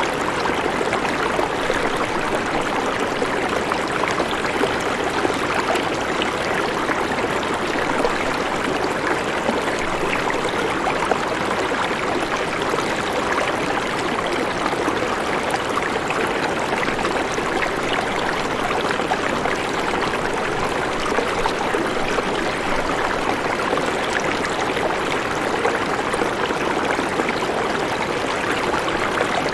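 Steady, even rush of running water, a rain-and-water ambience track with no change in level.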